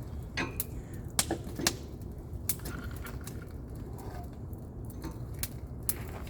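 Wood campfire crackling, with sharp irregular snaps and pops over a steady low rumble.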